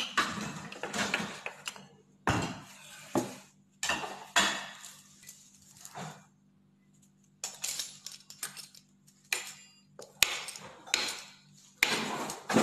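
A foil-lined metal baking tray clattering and its foil rustling as dough is rolled out and pressed flat on it, in several separate bursts with sharp knocks at their start.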